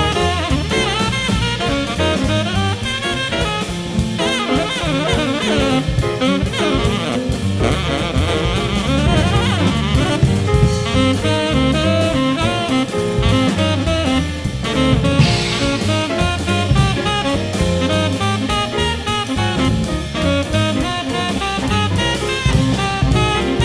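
A jazz quintet plays live: saxophone over drum kit with cymbals and piano.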